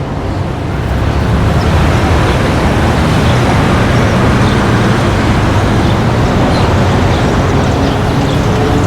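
Street traffic ambience: a steady wash of vehicle noise with a low engine rumble, fading in over the first second.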